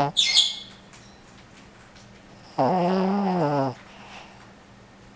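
Snoring: a short hiss right at the start, then one long pitched snore of about a second, starting about two and a half seconds in.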